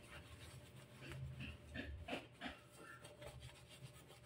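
Faint, irregular rubbing and light scraping of a sponge scrubbing a clear plastic water-filter housing.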